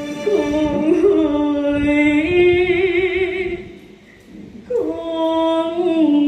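A single voice singing long held notes with a wide, wavering vibrato, in Vietnamese cải lương opera style. The phrase fades out about four seconds in, and a new one starts soon after.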